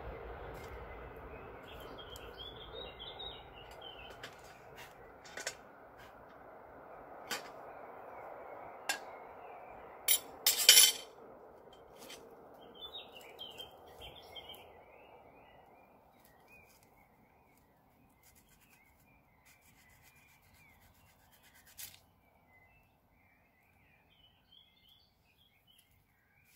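Camping gear and cookware being handled: scattered sharp clicks and knocks, the loudest a short clatter of a few knocks about ten seconds in. Faint bird chirps run behind, over a soft steady rush that fades away over the first half.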